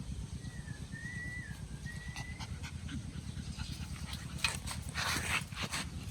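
Puppies panting rapidly, with a thin high whine about half a second in that lasts about two seconds, and a few louder, breathy bursts near the end.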